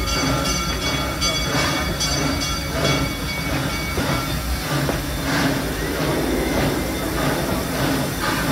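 Amusement-park steam train running along the track, heard from just behind the locomotive's tender: a steady rumble with a faint beat repeating about once a second. A thin high squeal fades out about two seconds in.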